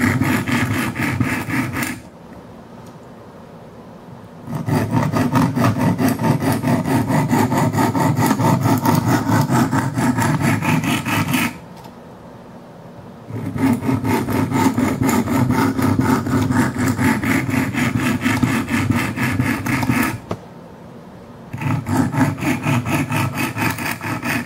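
Coarse 50-grit diamond stones of a Wicked Edge guided sharpener rasping in fast back-and-forth strokes along the steel edge of a dull Kershaw Skyline knife. The stones are new and not yet broken in, very rough. The grinding stops three times for a second or two and resumes.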